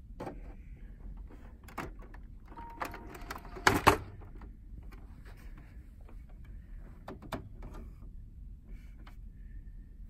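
Plastic clicks and knocks of an HP OfficeJet 5255 inkjet printer's ink-access door and cover being lifted open and handled, with a loud double clunk about four seconds in.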